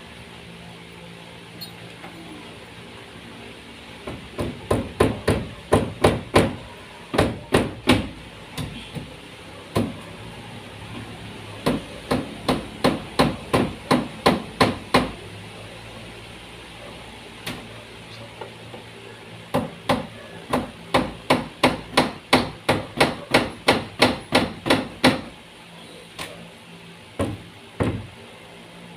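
Hammer strikes during carpentry work, in three runs of quick blows at about three a second, with a few single blows between them.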